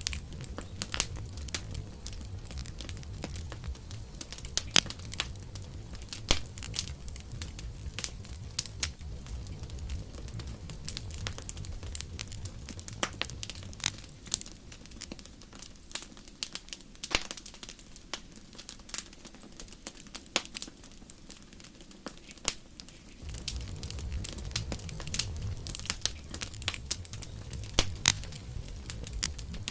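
Wood fire crackling, with frequent irregular sharp snaps and pops over a low rumble that drops away for several seconds midway and then comes back.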